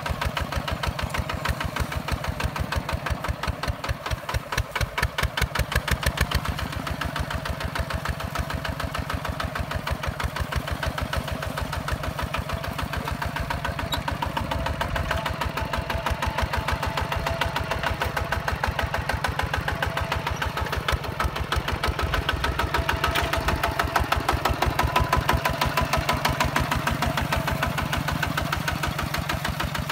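Single-cylinder diesel engine of a Hinota HG Gold 155 DI walking tractor running under load as it pulls a plough through dry soil, with a rapid, even firing beat. It swells louder for a few seconds at a time.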